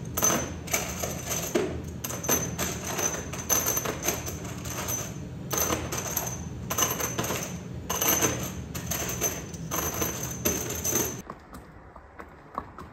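Workshop machinery: rapid, irregular clattering and clinking of metal parts over a steady low machine hum with a thin high whine. It all stops suddenly near the end, leaving faint hoof clops on cobblestones.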